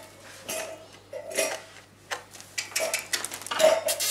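Metal puppy bowl on a wire stand clinking and ringing irregularly as bulldog puppies jostle it, the knocks coming more often and louder toward the end. A faint steady electrical hum runs underneath.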